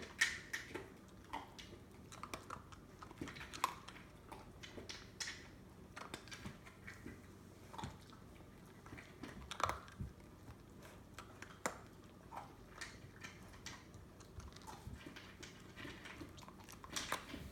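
Puppy rooting through the fleece strips of a snuffle mat and chewing the kibble it finds: irregular short crunches and clicks, several a second at times.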